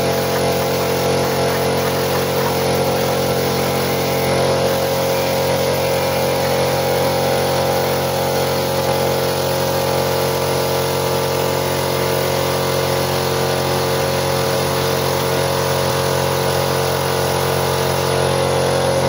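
Colt Atlantic 240/50 piston air compressor running steadily with a hum, under the continuous hiss of an air spray gun spraying primer.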